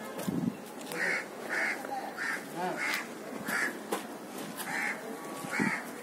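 A crow cawing over and over, about eight short harsh caws in steady succession.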